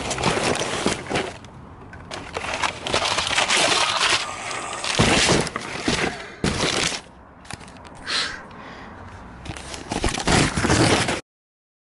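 Paper flyers and cardboard rustling and crumpling right at the microphone in irregular bursts, then cutting off suddenly near the end.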